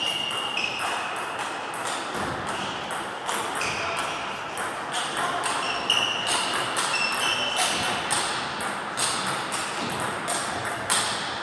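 Table tennis balls clicking off bats and tables: many irregular sharp ticks, some with a brief high ring, echoing in a large hall, with faint voices.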